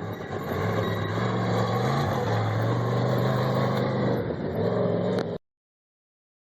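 Off-road race vehicle's engine running steadily, its pitch stepping up slightly about two seconds in, then cut off suddenly near the end.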